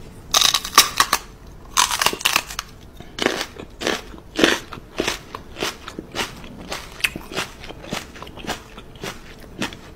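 A chewing-style crunching sound: a string of irregular crisp crunches, loudest and densest in the first two and a half seconds, then lighter.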